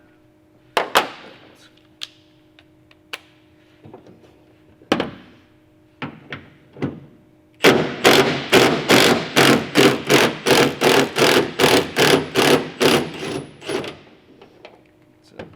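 A few scattered metal clicks and knocks, then a hand ratchet worked quickly back and forth, about three rasping strokes a second for some six seconds, backing out a tailgate bolt. A faint steady hum sits underneath.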